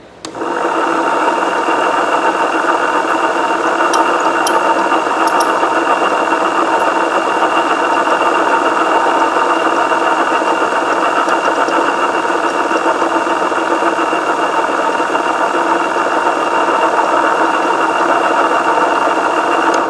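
Electric motor of a coil-winding machine running at a constant speed while it winds enamelled copper wire onto a subwoofer voice-coil former. It starts suddenly, holds a steady whine throughout, and stops suddenly near the end.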